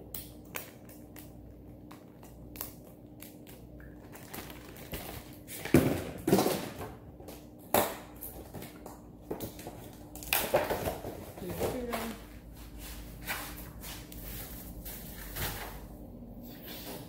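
A plastic zip-top sandwich bag being handled and pressed shut, with scattered clicks and knocks of kitchen handling. A person's voice is heard briefly twice near the middle.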